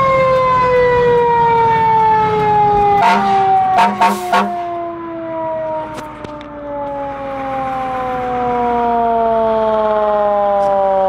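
A fire truck's siren winding slowly down in pitch as it coasts to a stop. About three seconds in, four short air-horn blasts sound over it.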